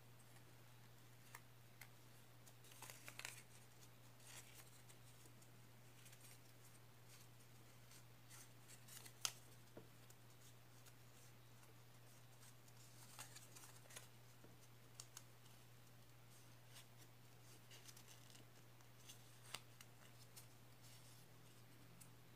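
Mostly near silence, with faint rustling and small crinkling clicks from a strip of paper being rolled by hand into a spiral flower. A steady low hum lies underneath.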